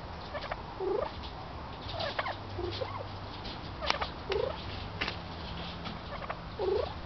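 Domestic turkey hen giving a series of short calls, about six, each a brief call that dips and rises in pitch.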